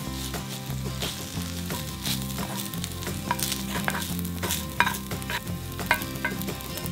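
Cooked rice and jjajang noodles sizzling in a frying pan as a wooden spatula stirs and scrapes them, with a run of sharp clicks of the spatula on the pan in the second half, the loudest about five seconds in.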